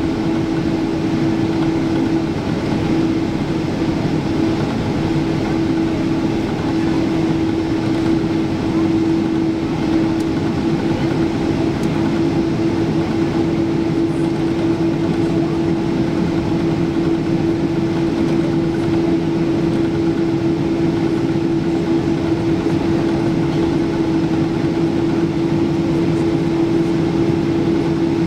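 Cabin noise of a Boeing 777-200ER airliner taxiing: a steady engine drone with a constant mid-pitched tone running through it.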